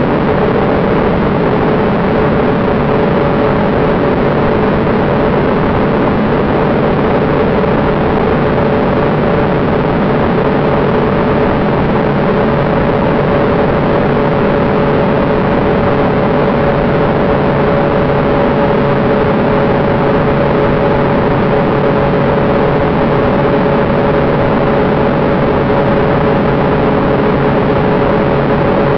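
Small jet aircraft's engine heard from on board, a steady unchanging drone with a hum of two held tones over rushing airflow noise, as in level cruise.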